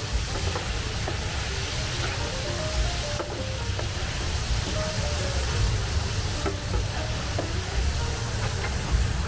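Battered chicken deep-frying in a commercial fryer: the hot oil sizzles and bubbles steadily, with a few light clicks. Background music plays over it.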